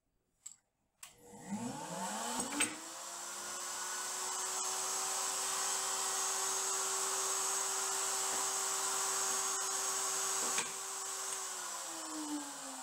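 Table-mounted router motor spinning up to speed about a second in and running steadily while a board is pushed across the bit to cut a dado. It is switched off about two seconds before the end and winds down with a falling pitch.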